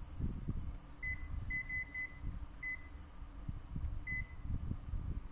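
Short electronic beeps from a ZOYI ZT102A digital multimeter's buzzer, about six in all at irregular intervals, several in quick succession, over low rustling and handling noise.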